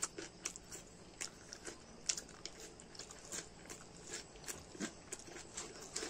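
Close mouth sounds of a person eating by hand: biting into a raw spring onion stalk, then chewing rice and curry, with short crisp clicks and smacks about twice a second.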